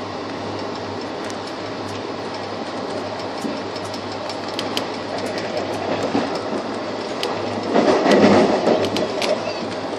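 Passenger coach of the 11042 express running at speed: a steady rumble of wheels on track with many sharp clicks over the rails. A louder rattling rush lasts about a second near the end.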